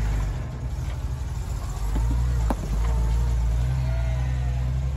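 A vehicle engine running low and steady as it crawls over a rock obstacle, with one sharp click about halfway through.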